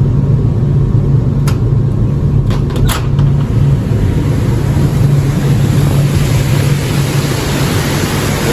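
Steady low machinery hum with an even rushing noise in an indoor pool room, the rushing growing stronger over the second half, with a few light clicks about one and a half to three seconds in.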